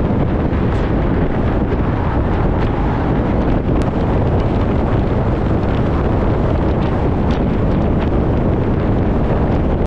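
Strong wind blowing across the microphone: a loud, steady, low rumble with a hiss above it.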